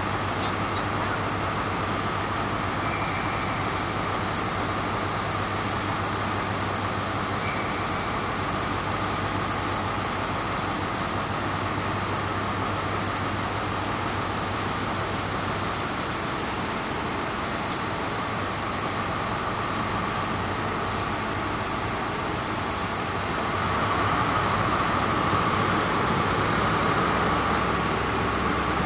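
Trains standing at the platform running at idle, among them an LNER HST Class 43 diesel power car, making a steady, even din. A low hum drops away about 16 seconds in, and the noise grows a little louder about 24 seconds in.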